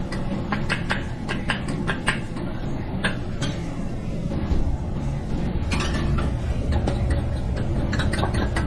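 Kitchen work sounds: repeated sharp clicks and knocks of utensils and cookware over a steady low rumble, the rumble growing louder about halfway through.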